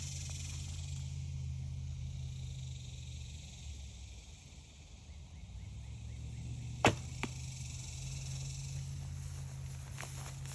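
1959 Bear Kodiak recurve bow shot: one sharp, loud snap of the string on release, followed about a third of a second later by a softer smack of the arrow striking the 3D target.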